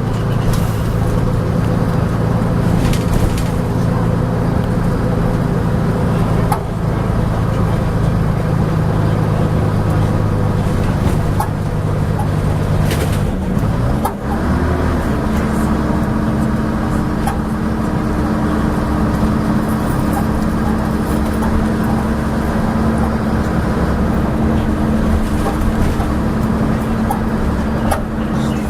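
Leyland Atlantean double-decker bus running on the road, its Leyland O.680 six-cylinder diesel pulling steadily and changing pitch about halfway through as it shifts gear, with a few sharp clanks from the bus.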